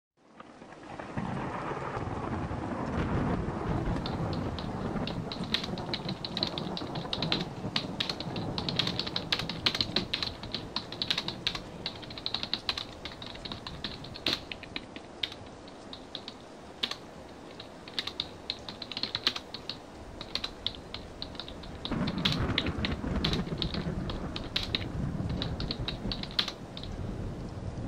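Rapid typing on a computer keyboard, a quick irregular run of key clicks starting about four seconds in, over a low background rumble that swells at the start and again near the end.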